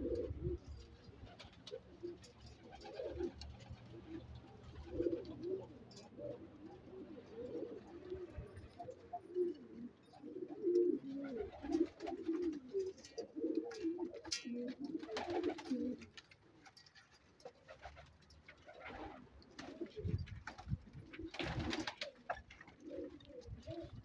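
Pigeons cooing: a dense run of low, warbling coos that thins out about two-thirds of the way through and picks up again near the end, with a few short noisy bursts in between.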